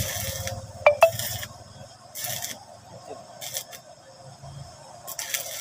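Mini inverter stick (MMA) welder striking and holding its arc in short goes: about five brief crackling hisses, each under half a second, with two sharp clicks just before a second in.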